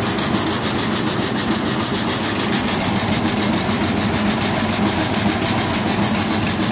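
Rice milling machine running steadily under load, with grain streaming through it and out of the chute. It makes a constant mechanical hum with a fast, even rattle over it.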